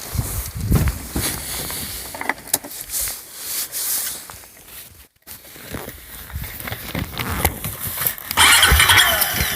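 Scattered knocks and clunks, then about eight seconds in a Honda quad ATV engine starts and runs loudly.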